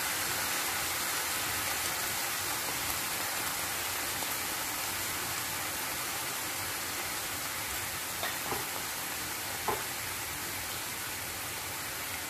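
Cubed chicken breast sizzling in hot oil on sautéed onion in a non-stick frying pan, a steady hiss that slowly eases, while the chicken is partly cooked. A few small pops come in the second half.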